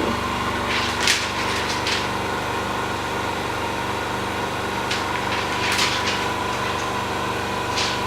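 Steady machine hum in a repair workshop, with a few short hiss-like sounds: about a second in, near two seconds, around six seconds and near the end.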